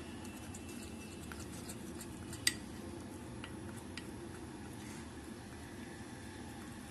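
Metal spoon stirring melted white compound chocolate in a glass bowl, with soft scraping and light clinks of the spoon against the glass; the clearest clink comes about two and a half seconds in.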